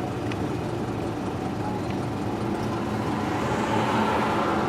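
Steady car engine and road noise, growing louder near the end.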